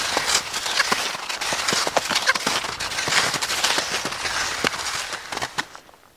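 Skis sliding over snow: a steady scraping hiss with many irregular crunching clicks, which fades away about five and a half seconds in as the skier comes to a stop.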